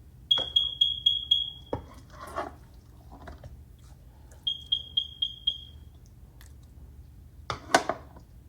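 Electronic alarm beeper sounding two runs of rapid, high-pitched beeps, about four a second, each run lasting about a second and a half. Between the runs come a few light knocks, and a louder clatter near the end is the loudest sound.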